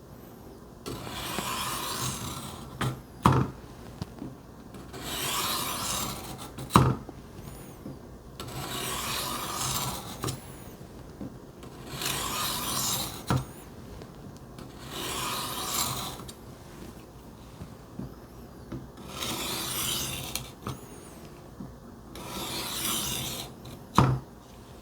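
Kitchen knife edge drawn across a wet coarse diamond sharpening plate on a Work Sharp Benchstone: seven long gritty rasping strokes, one about every three and a half seconds. Three short sharp knocks between strokes are the loudest sounds.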